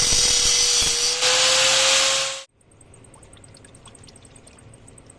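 Loud hissing machine noise with a steady whine running under it, cut off abruptly about two and a half seconds in. After that, only faint ticking.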